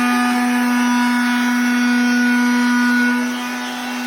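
Electric power sander running steadily at full speed with a constant whine. It is switched off right at the end and its pitch starts to fall as it spins down.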